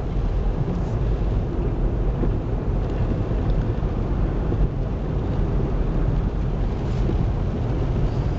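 Steady low rumble of a car's engine running, heard inside the cabin.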